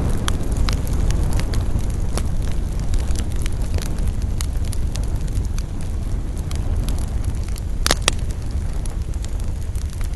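Campfire burning with a steady low rumble and scattered crackles from the burning wood, and a louder double pop about eight seconds in.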